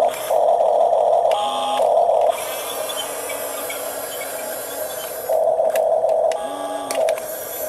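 Electric motors of a Huina 1569 radio-controlled toy bulldozer whining in two runs of about two seconds each, one near the start and one late on, with a brief higher tone inside each run, over a steady hiss.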